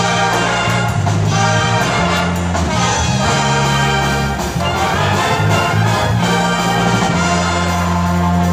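Pep band playing: trumpets and trombones over sousaphone bass notes, with a drum kit keeping the beat.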